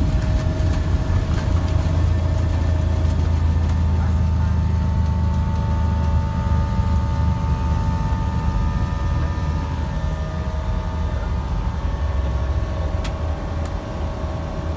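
Airbus A320's twin jet engines at take-off thrust heard inside the cockpit: a steady low rumble with several high steady tones over it, through the take-off roll and lift-off. The low rumble eases somewhat in the second half, once the aircraft is airborne.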